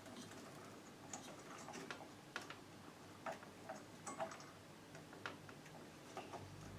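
Faint, irregular light clicks and taps from computer parts and cables being handled, over a low steady hum.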